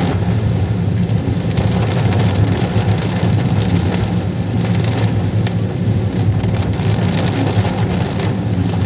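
Steady in-cabin sound of a car driving in heavy rain: a low engine and road rumble with rain hitting the windshield and roof and tyres hissing on the wet road.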